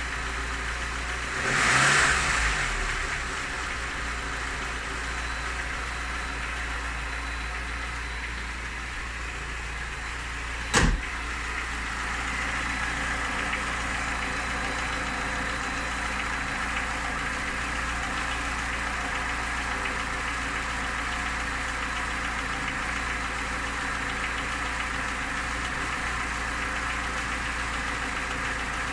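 Lada Niva engine idling steadily, with a brief louder swell about two seconds in and a single sharp click about eleven seconds in. The owner reports a knock from the engine and does not know its cause.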